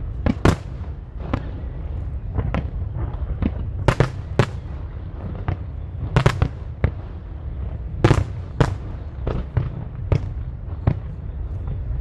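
Aerial fireworks shells bursting: more than a dozen sharp bangs at irregular intervals, some in quick pairs, over a steady low rumble.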